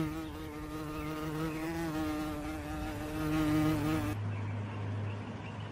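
A flying insect buzzing close by: a steady drone that wavers slightly in pitch and stops abruptly about four seconds in, after which a low steady hum is left.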